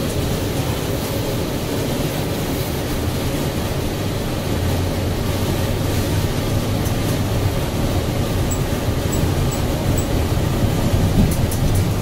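Cabin noise of a 2007 NABI 60-BRT articulated bus under way: the Cummins Westport ISL G natural-gas engine and Allison automatic transmission run with a steady low hum under road and body noise. The hum grows stronger about four to five seconds in.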